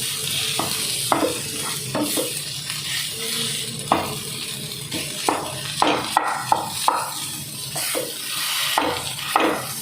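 A spoon or spatula stirring boiled potato into sautéed vegetables in a hot pan, scraping and knocking against the pan at an uneven pace over a steady sizzle.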